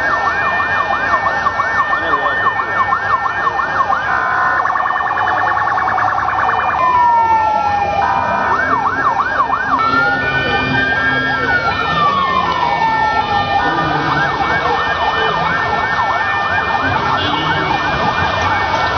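Vehicle sirens switching between patterns: a fast yelp, a very rapid warble about four seconds in, then slow rising and falling wails in the middle, and the fast yelp again toward the end. A steady high tone sounds alongside them.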